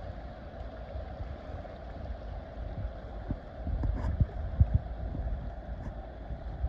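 Wind buffeting the microphone over a steady rush of water, with a few low thumps near the middle.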